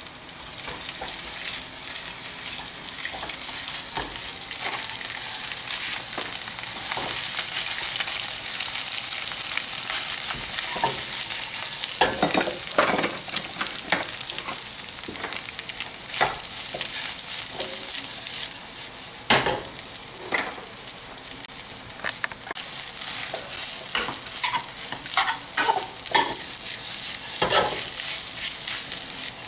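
Rice frying in hot oil in a nonstick frying pan, a steady high sizzle, with repeated scrapes and clinks of a metal ladle stirring and turning it.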